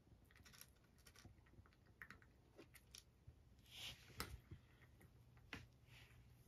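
Grey cat crunching dry kibble, faint irregular clicks and crackles of chewing, a little louder about four seconds in.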